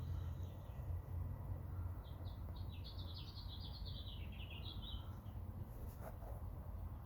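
A songbird sings one phrase of quick, high notes lasting about three seconds, beginning about two seconds in and dipping slightly in pitch toward its end. A steady low rumble runs underneath, and a brief click comes near the end.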